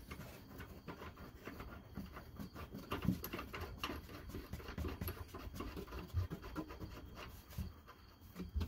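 Faint scratching and light irregular metal clicks as a nut is threaded by hand onto the upper mounting bolt of a new rear shock absorber, with a soft thump near the end.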